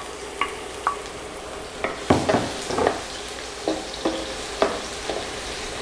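Minced garlic sizzling as it sautés in hot oil in a wok, with a wooden spoon stirring and knocking against the pan now and then.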